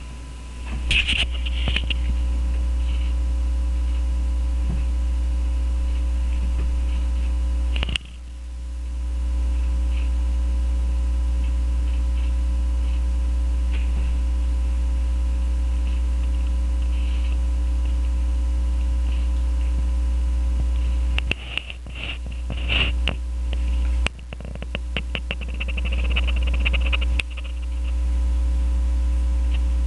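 Soft rustles and taps of cats scuffling among cloth pillows on a bed, sparse at first and bunched together in the last third. Under them runs a steady low hum with faint steady tones, which dips suddenly several times and swells back.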